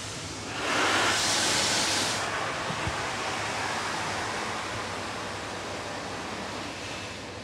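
Water spray from a Belanger Saber touchless car wash hitting the car, heard from inside the cabin: a hiss that surges loudly about a second in, then settles to a steady rush that slowly fades.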